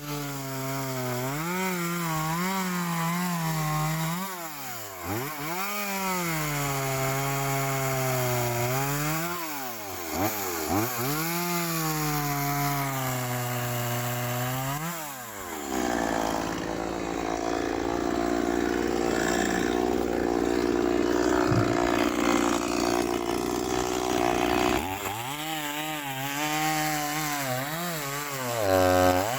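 Interskol PTsB-180 two-stroke petrol chainsaw, revved up and down repeatedly. In the middle it is held at steady high revs for about nine seconds with a rasping sawing noise, cutting wood. Near the end it drops back to blipping the throttle and revs up once more.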